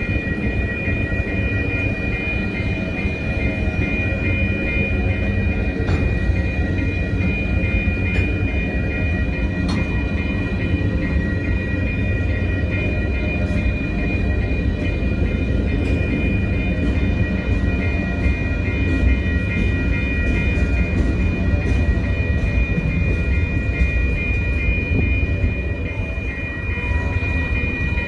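Freight train of covered hopper cars rolling steadily through a level crossing: a constant low rumble of wheels on rail with scattered sharp clicks of wheels over rail joints. Over it the crossing's warning bell rings on and on in an even, repeating pattern.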